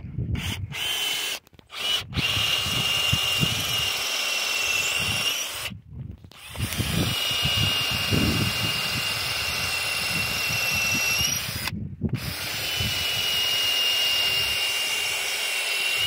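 Ryobi cordless drill boring into a cedar log, its motor whining steadily at high speed in long runs, with three short stops where it cuts out and starts again.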